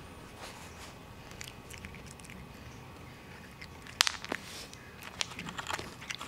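Cat biting and crunching dry cat kibble: two sharp crunches about four seconds in, then a quick run of small crunches and clicks near the end.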